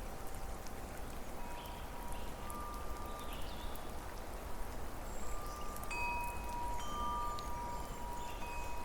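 Wind chimes ringing: several clear metal tones at different pitches strike at different moments and hold. Behind them runs a steady hiss of falling water.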